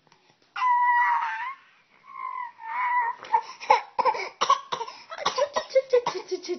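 A child's put-on, fake cough. It opens with a loud, high-pitched crying wail, then breaks into a quick run of short voiced coughs, several a second, that fall in pitch toward the end.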